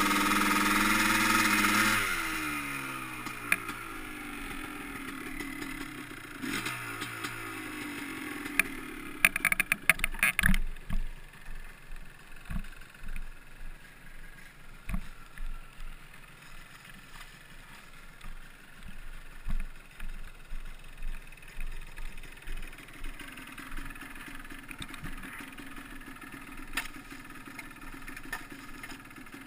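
Yamaha Blaster ATV's single-cylinder two-stroke engine running hard, then revs falling away over several seconds as the quad slows. About nine seconds in comes a burst of clatter, followed by scattered knocks and handling noises with the engine low.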